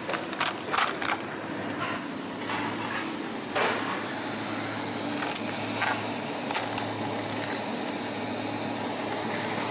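Plastic meat trays and film-wrapped packs clicking and crinkling as they are handled and lifted, with the sharpest knock a little over a third of the way in. Underneath runs the steady low hum of an open refrigerated display case.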